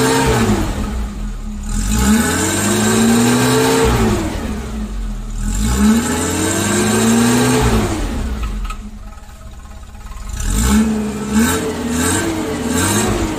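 Car engine being revved: three long revs that climb and fall back, a short lull, then a run of quick short blips of the throttle.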